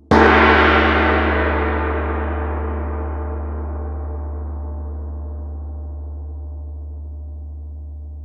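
A gong struck once, right at the start, ringing out and slowly fading over several seconds. Its higher tones die away first while a deep low tone keeps sounding.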